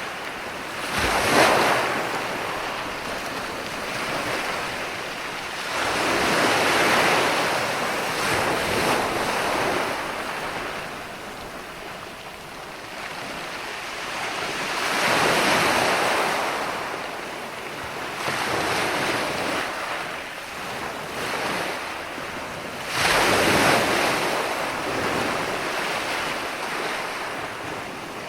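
Ocean waves breaking on a beach, a continuous wash of surf that swells up four times, about every seven to eight seconds.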